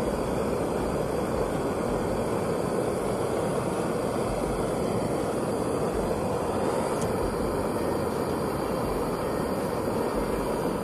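Soto Amicus backpacking stove burning steadily with an even rushing noise. It cuts in and cuts off abruptly.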